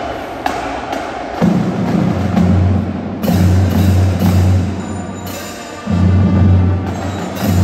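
Marching band playing: sharp drum hits and several cymbal crashes over deep held notes, each about a second long, that come in about a second and a half in.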